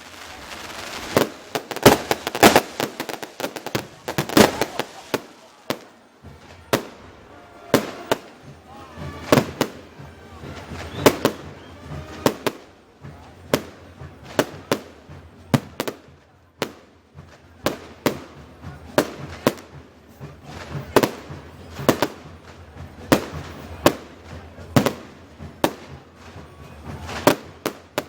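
Fireworks display: aerial shells bursting in a steady run of sharp bangs, about one or two a second. There is dense crackling in the first few seconds.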